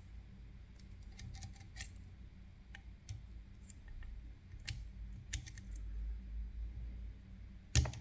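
Lock picking in a Picard Vigie cylinder: small metallic clicks and brief scrapes of the pick and wire tensioner working the sliders, scattered and irregular over a low rumble, with one louder, sharp click near the end.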